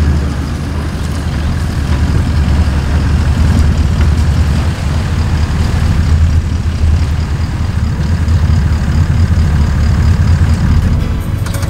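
Four-wheel-drive vehicle's engine running at low revs as it drives slowly across soft sand: a loud, steady, deep rumble.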